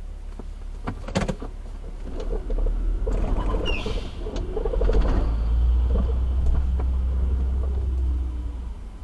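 Road traffic moving off, heard from inside a car: a low rumble of engines and tyres swells from about two seconds in and falls away near the end. A couple of sharp knocks come about a second in, and a brief high squeal around the middle.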